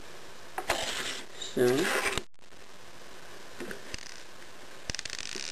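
Faint small clicks and rustling of plastic Lego pieces being handled, in a short cluster a little past halfway and another near the end.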